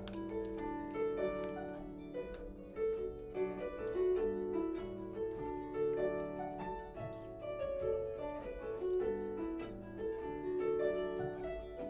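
Harp playing a tune in plucked notes, melody over chords, each note ringing on.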